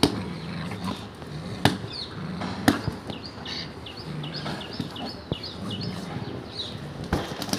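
Pit bull puppy tugging on a rubber motorcycle inner tube, with a few sharp snaps and knocks. Birds chirp over it in quick, repeated calls.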